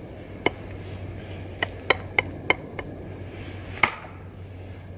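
Bark River Bravo Crusader knife chopping into dry, hard dead wood: about seven sharp chops at uneven spacing, with a quick run of four in the middle.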